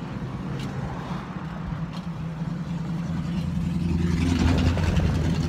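A motor vehicle engine running on the road close by, a steady low hum that grows louder toward the end as it nears.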